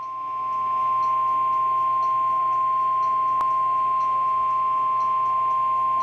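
A Midland NOAA weather radio sounds its steady, single-pitch warning alert tone of about 1050 Hz, which signals that a warning message is about to follow. The tone gets louder about a second in, and there is a faint click about halfway through.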